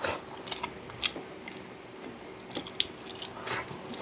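Close-up eating sounds: a person chewing soft food, with short wet mouth smacks and clicks at irregular intervals.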